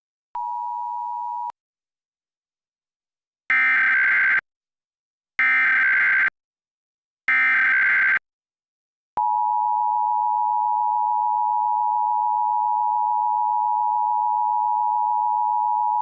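Emergency Alert System test tones on a cable TV feed: a short steady beep about a second long, then three one-second bursts of the screechy SAME digital header data, and from about nine seconds in the long steady EAS attention tone near 1 kHz.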